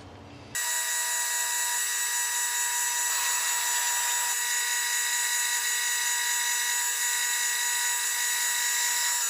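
Pen-turning lathe running steadily at about 1250 RPM with a constant motor whine, while a polishing pad is held against the spinning resin pen blank. The sound starts abruptly about half a second in.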